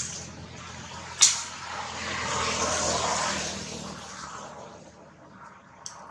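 A passing motor vehicle: its noise swells to a peak about three seconds in, then fades. A single sharp click comes about a second in.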